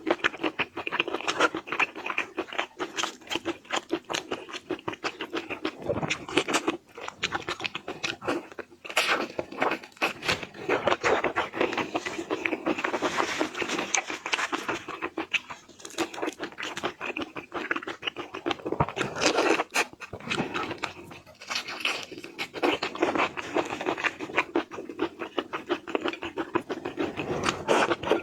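Close-miked eating sounds: rapid crunching and crackling of seafood being bitten and chewed, with wet mouth noises.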